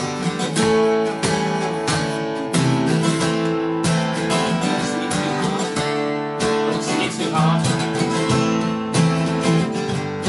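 Two acoustic guitars strummed together, playing repeated chords in an instrumental passage with no singing.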